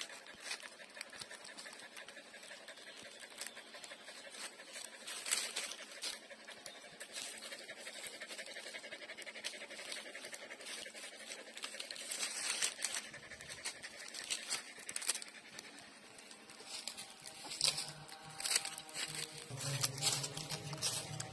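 Puppies suckling from their standing mother dog: irregular wet sucking and smacking clicks with small scuffling noises.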